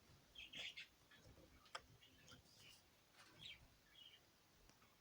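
Faint, scattered small clicks and soft crackles, with one sharper click just under two seconds in.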